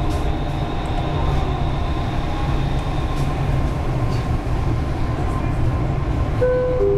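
Dubai Metro train running, heard from inside the car: a steady low rumble of wheels and traction motors. Near the end a two-note falling chime sounds, the onboard chime that comes before a station announcement.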